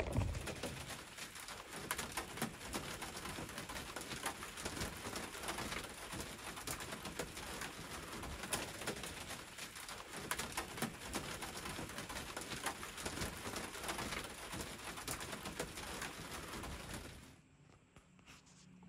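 Rain falling on a small sailboat's cabin roof, heard from inside the cabin: a steady hiss full of small drop ticks that cuts off suddenly near the end.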